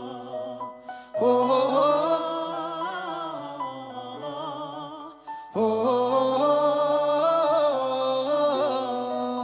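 Vocals-only song intro: a male voice sings a wordless, melismatic line in two long sustained phrases, with no instrumental backing.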